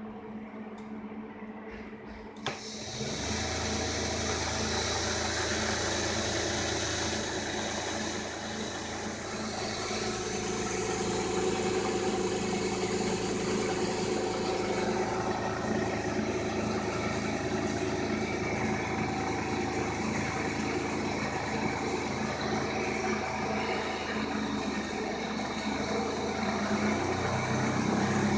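Electric rotation drive motor of a Sir Meccanica portable line-boring machine switched on with a click about two and a half seconds in, then running steadily. Its sound changes a little as the speed is turned up, reaching about 1,900 rpm near the end.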